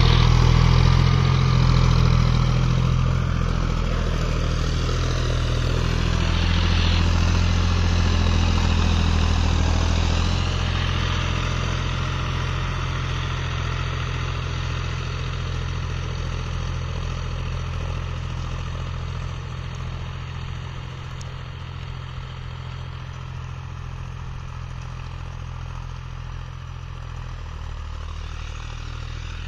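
Tractor's diesel engine running steadily under load while pulling a rotary tiller through dry soil. The drone grows gradually fainter as the tractor moves away.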